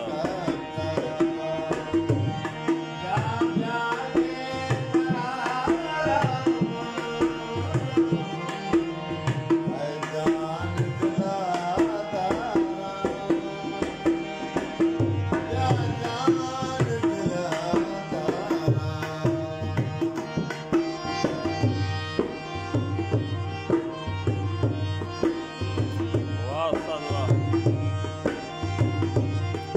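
Harmonium playing a ghazal melody over a tabla rhythm. The drum beat runs on steadily and grows stronger and more even in the second half.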